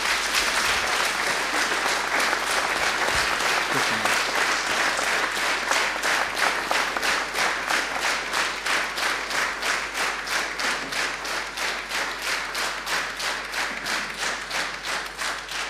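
Audience applauding in a hall. About five seconds in, the clapping falls into a steady unison beat of about three claps a second.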